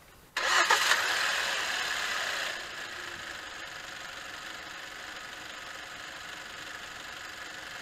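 2013 Hyundai Santa Fe Sport's 2.0-litre turbocharged inline-four idling, heard from over the open engine bay. It comes in suddenly, is louder for the first two seconds, then settles to a steady, lower level.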